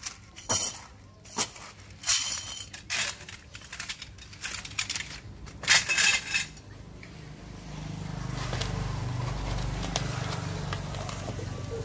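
Small hard metal pieces clinking and tapping as they are handled, then a steady low hum that sets in about seven seconds in and carries on.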